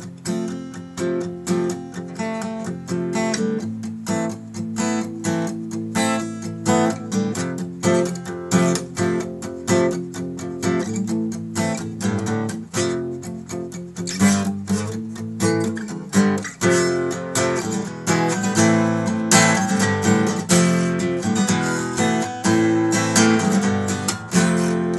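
Takamine ETN20C acoustic-electric guitar being played, chords strummed in a steady rhythm with picked notes between. It grows louder in the second half.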